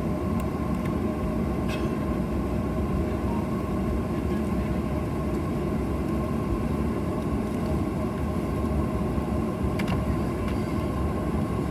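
Cabin noise inside a Boeing 737 taxiing: a steady low rumble from the jet engines at taxi power with a thin steady whine above it. A few faint clicks come through.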